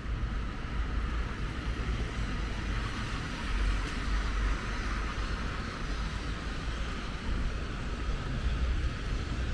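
Rainy city street ambience: a steady hiss of rain and traffic on wet roads over a low rumble. The hiss swells for a couple of seconds around the middle.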